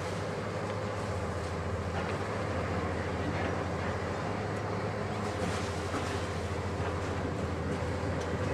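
Diesel engine and hydraulics of a Hitachi 870 XXL demolition excavator running steadily with a low drone, and a few faint knocks.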